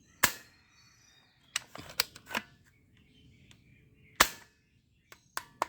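A toy gun firing: sharp cracking shots, two loud ones about four seconds apart, with smaller clicks between them and near the end.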